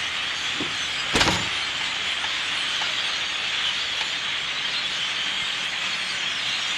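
A large flock of crows cawing all at once, a continuous dense din with no single call standing out. A brief thump about a second in.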